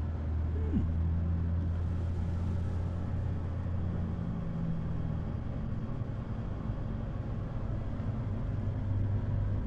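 Steady low rumbling hum, with a faint steady tone above it that stops about halfway through.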